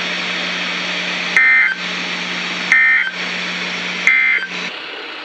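NOAA Weather Radio SAME end-of-message signal: three short digital data bursts about 1.3 seconds apart, marking the close of the alert broadcast. A low steady hum and static from the weather radio lie under the bursts, and the hum cuts off near the end.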